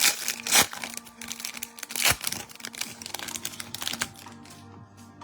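Wrapper of a trading card pack crinkling and tearing open, in irregular crackles, the loudest near the start and about two seconds in, with quiet background music under it.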